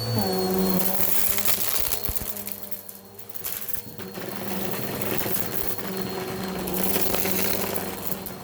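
Bissell vacuum cleaner running up close, with a steady motor hum and rushing air from the brushroll. The hum drops in pitch right at the start, and the sound dips briefly about three seconds in before coming back up.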